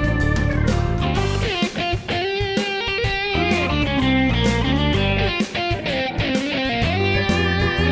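Background music: an electric guitar tune over a steady bass line.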